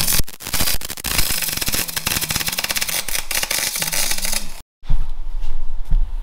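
MIG welder arc crackling steadily as a bead is laid, stopping abruptly about four and a half seconds in.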